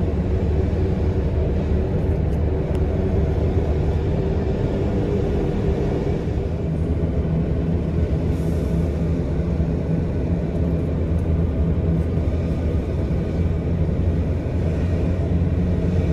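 Vehicle driving steadily along a paved road: a constant low rumble of engine and tyre noise with no change in speed.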